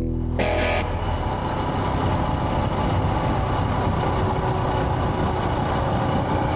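A Royal Enfield Himalayan's single-cylinder engine running steadily, with a constant rush of noise under it. A short tail of music ends about half a second in.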